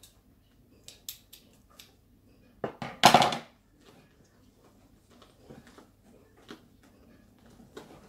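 Packing material being handled while a doll part is unwrapped: foam wrap and bubble wrap rustling and crinkling, with a few light scissor snips early on and one louder half-second crinkle about three seconds in.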